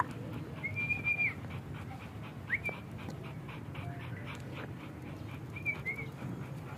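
Large black dog panting, with three brief high-pitched squeaks about a second in, two and a half seconds in and near the end.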